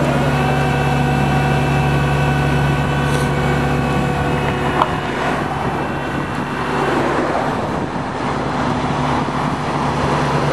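A vehicle engine idling steadily, with freeway traffic rushing past.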